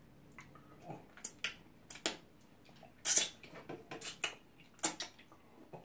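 Wet eating sounds from hands and mouths eating slimy ogbono soup with pounded yam: short scattered smacks, squelches and finger-sucking, with a louder, longer one about three seconds in.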